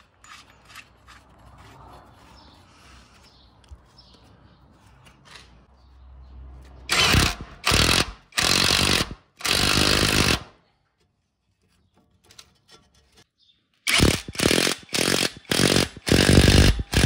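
Impact wrench run in short bursts on a rear shock absorber bolt. There are faint clicks at first, then four loud bursts from about seven seconds in, a pause, and a quicker string of bursts from about fourteen seconds on.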